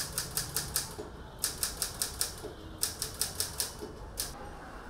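Manual typewriter keys striking in quick runs of five or six strokes, with short pauses between runs and one last stroke a little past four seconds in.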